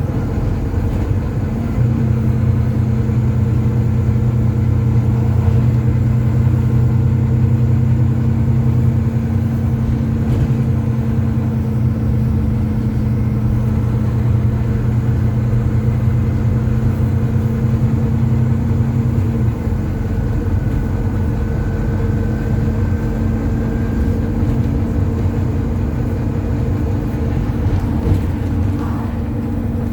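Volvo B9TL double-decker bus's six-cylinder diesel engine running steadily, heard from inside the bus. The drone steps up about two seconds in, and a lower note drops away a little past the middle.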